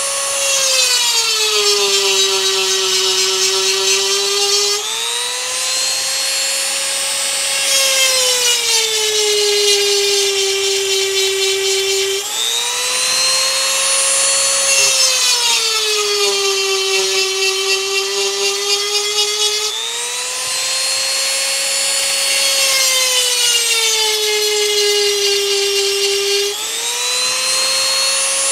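Rotary tool with a diamond grinding bit whining at high speed while grinding chainsaw cutter teeth. Four times its pitch sags as the bit bears on a tooth and slows under the load, then climbs back as it comes off.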